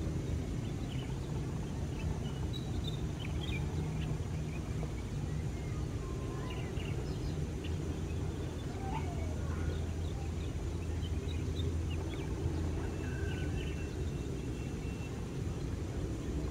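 Steady low rumble of a distant twin-engine jet airliner on final approach, with scattered short bird chirps.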